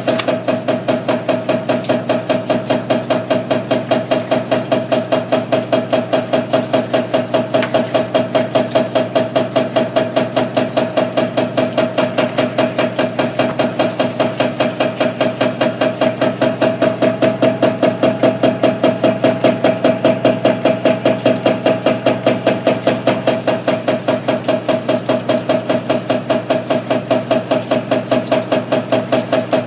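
Shaking concentrating table (wave table) running, its drive giving a rapid, even knocking over a steady motor hum.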